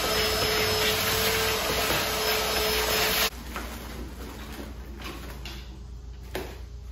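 A machine running with a steady rushing noise and a steady whine, cutting off suddenly about three seconds in. Quieter handling sounds follow, with one sharp click near the end.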